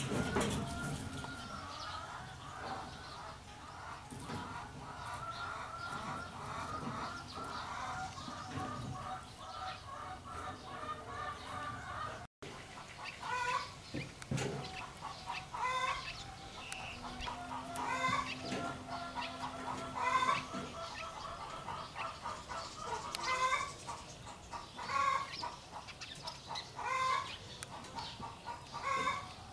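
Chickens clucking: a rapid run of clucks, then single clucks repeating about every second.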